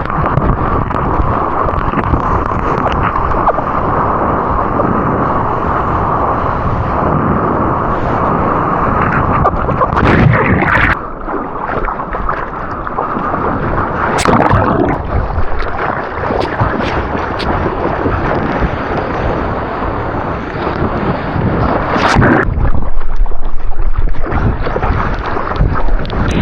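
Ocean water rushing and splashing around a surfer's action camera, with wind buffeting the microphone. The noise shifts abruptly about eleven seconds in and again near the end, with a few sharp splashes.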